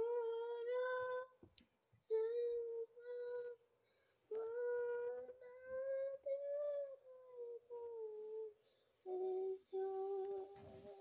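A child humming a wordless tune in four short phrases of held, slightly wavering notes, with brief pauses between them.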